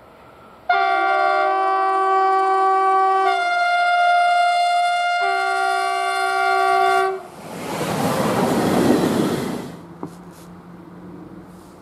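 Train horn sounding a long multi-tone blast of about six seconds, starting suddenly and changing chord twice, followed by a loud rush of noise for about two seconds as the train passes.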